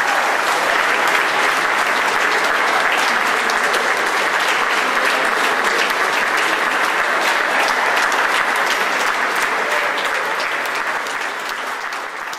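An audience applauding steadily with many hands clapping, starting to die down near the end.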